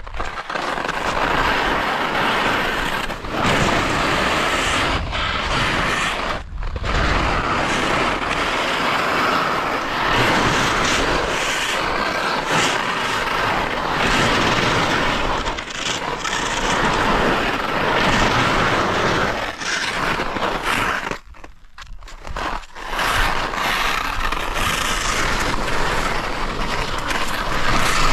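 Steady rushing scrape of skis running over snow on a descent, with a short lull about six seconds in and a longer one of a second or two around twenty-one seconds in.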